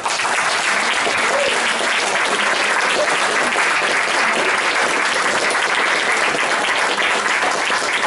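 Theatre audience applauding: many hands clapping, breaking out all at once and holding steady.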